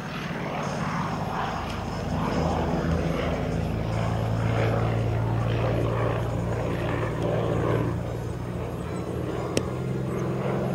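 Pitts Model 12 aerobatic biplane's engine and propeller running in flight, steady in pitch and growing louder about two seconds in. A single sharp click sounds near the end.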